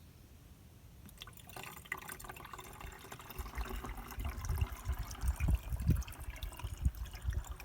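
Nectar being poured into a hummingbird feeder: liquid trickling and splashing. It starts about a second in and grows louder, with repeated low thumps over the second half.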